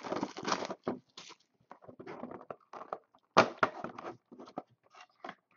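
Clear cellophane wrap being torn and crinkled off a Panini Spectra basketball card box as the box is handled: irregular crackling rustles, with a sharper, louder crackle about three and a half seconds in.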